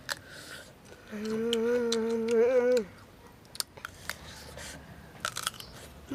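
Crunching bites and chewing of fresh green jujube fruit, heard as scattered short crisp clicks. About a second in, a hummed "mmm" of enjoyment is held on one pitch for nearly two seconds, louder than the chewing.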